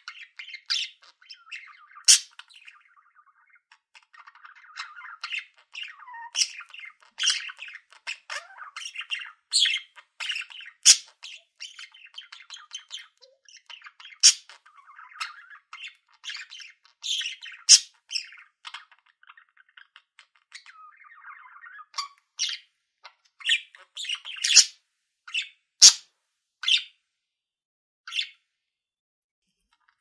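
Budgerigars chattering: a run of quick chirps and sharp squawking calls over softer warbling chatter.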